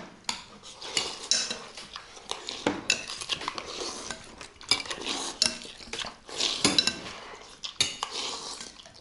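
Metal forks scraping and clinking irregularly against ceramic plates and bowls as two people eat as fast as they can.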